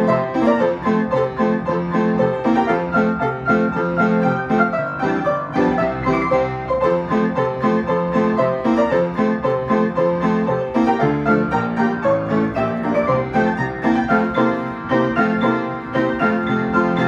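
Piano being played: a lively tune in many quick, short notes, with a steady accompaniment in the lower notes.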